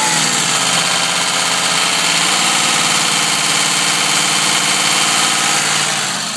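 V8 turbo-diesel engine revved and held at raised speed, with a steady high whine over the engine note; the revs drop away near the end. This is a throttle test for a turbo squeal, which the mechanic takes for a variable-geometry turbo problem.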